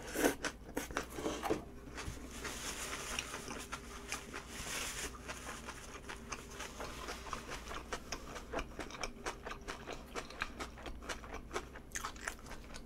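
Close-miked eating of Chinese food: a bite with louder clicks in the first second or so, then steady chewing with many small wet mouth clicks and smacks. A brief paper-tissue rustle comes a few seconds in.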